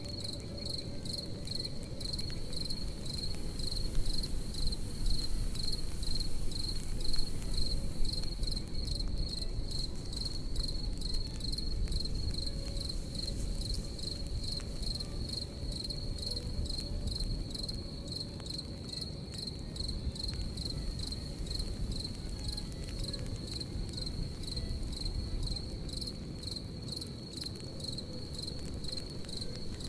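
Crickets chirping in a steady, even pulse over a crackling campfire, with the low rush of the fire and scattered sharp pops and snaps.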